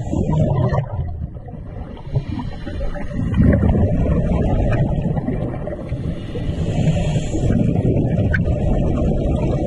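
Muffled, rumbling water noise picked up by a camera held underwater while snorkelling, surging and fading unevenly, loudest a few seconds in.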